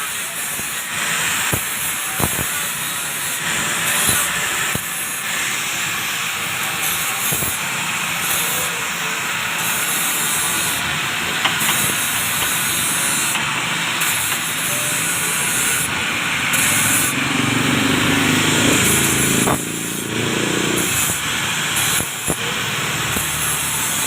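A steady, loud hiss with scattered clicks, a low rumble joining it for a few seconds past the middle.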